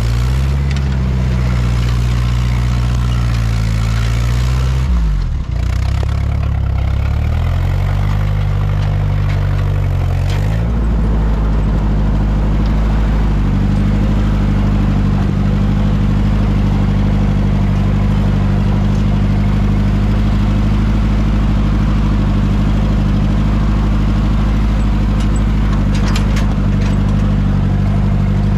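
Ford 8N tractor's four-cylinder flathead engine running; its speed wavers and dips sharply about five seconds in, then picks up and runs steady from about eleven seconds on. A few light metallic clanks come near the end.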